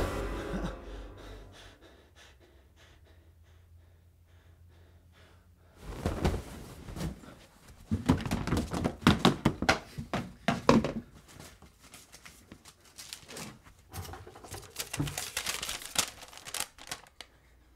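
Rummaging beside a bed, with knocks and thuds and rustling, followed by the crinkle of a folded sheet of paper being unfolded and handled. The fading tail of a loud sound is heard in the first couple of seconds, then a few seconds of quiet before the rummaging starts.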